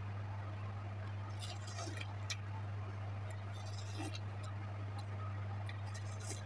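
A person biting into and chewing slices of ripe watermelon, heard as three short clusters of sharp, crisp clicks about two seconds apart, over a steady low hum.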